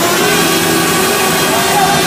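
Small quadcopter drone's propellers buzzing steadily: a loud hum of several steady tones over a hiss, drifting slightly in pitch.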